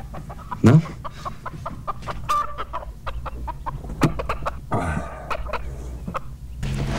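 A hen clucking in short, repeated clucks.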